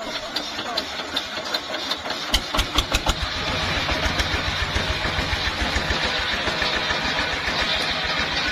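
A small single-cylinder stationary engine that drives a circular saw starts: it is cranked over, catches about two seconds in with a few slow uneven firings, then settles into steady running.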